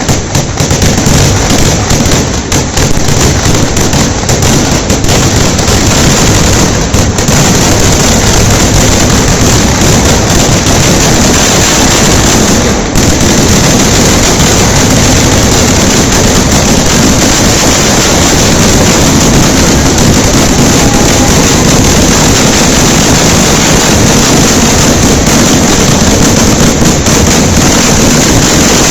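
Festival fireworks barrage: explosions fired so rapidly that they merge into one continuous, very loud din. Separate cracks stand out in the first several seconds before it becomes unbroken.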